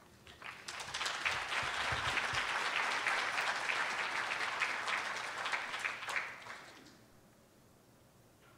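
Audience applauding, a dense patter of many hands that starts just after the opening and dies away about seven seconds in.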